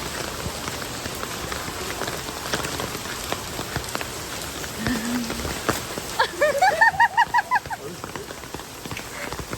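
Heavy rain falling steadily. About six seconds in, a quick run of about eight short rising calls rises above the rain for under two seconds.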